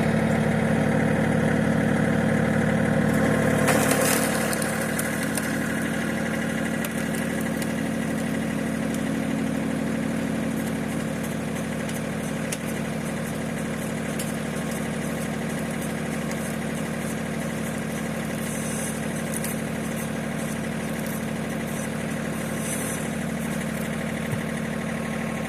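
Old farm tractor's engine running steadily, powering a hydraulic log splitter; it is a little louder for the first four seconds, then settles lower and stays even.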